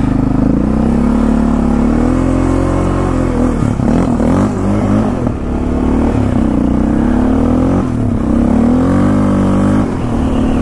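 Yamaha Raptor 700R quad's single-cylinder four-stroke engine running under way, its pitch climbing under throttle and falling back several times as the quad picks up speed.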